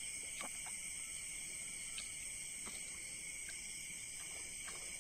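Steady high-pitched chorus of night insects, with a few faint clicks scattered through it.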